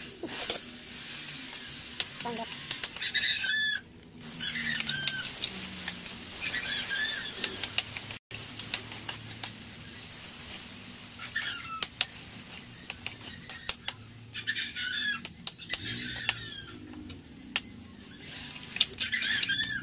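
Food frying and sizzling in hot oil in a wok while a metal ladle stirs and scrapes it, with frequent clicks and taps of the ladle against the pan. The sound briefly cuts out about eight seconds in.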